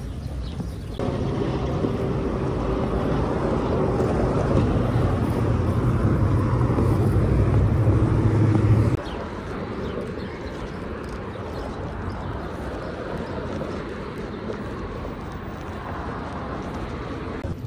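Street traffic noise with a vehicle engine humming close by, growing louder over several seconds. About nine seconds in it cuts off abruptly to quieter traffic and outdoor noise.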